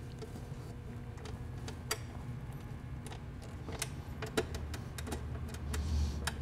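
Scattered sharp metallic clicks and clinks of hand tools as the bolts of a fuel filter bracket are refitted to the firewall, over a low steady hum that gets louder about four and a half seconds in.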